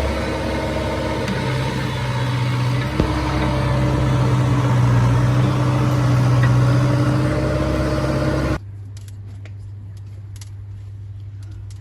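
Vehicle engine running steadily, its pitch rising a little midway. It cuts off abruptly about eight and a half seconds in, leaving a quieter low hum with scattered sharp clicks.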